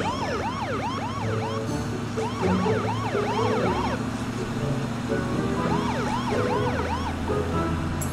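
Cartoon police siren: many quick rising-and-falling whoops, overlapping one another, over steady low background music.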